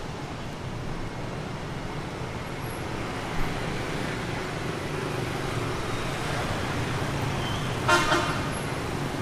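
Street traffic of motorbikes and cars driving past in a steady rumble, with a vehicle horn honking briefly near the end.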